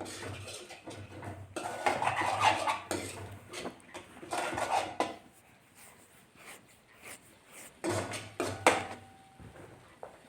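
A spoon stirring and scraping a thick spice paste around a kadai as it is sautéed, in uneven bursts of scraping and clinking, loudest about two seconds in, again around four to five seconds, and once more near eight seconds.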